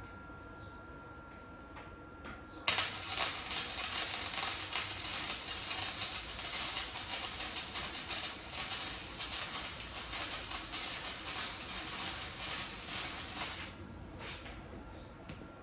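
Chicago Electric wire-feed welder laying a weld bead: a steady, fast crackle of the arc starts abruptly a few seconds in, runs for about eleven seconds and stops suddenly.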